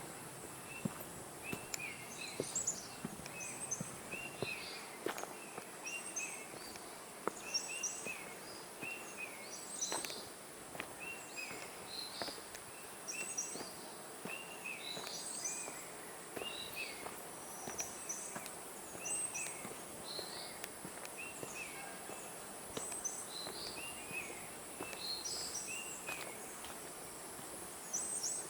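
Forest birds chirping in short, repeated calls over a steady high-pitched insect drone, with footsteps on a forest path.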